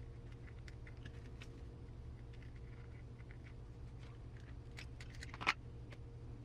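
Small plastic kit parts and screws handled on a workbench: scattered light clicks and taps, with one sharper, louder click about five and a half seconds in, over a low steady hum.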